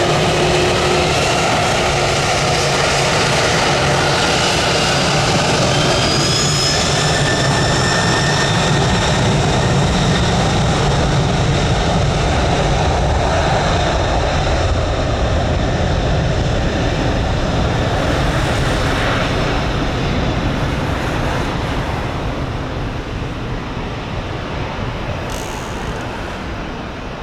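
Four-engine Boeing 747-400 jet flying past, its engines making a loud, steady noise with whining tones that shift in pitch during the first several seconds. The sound fades gradually over the last few seconds.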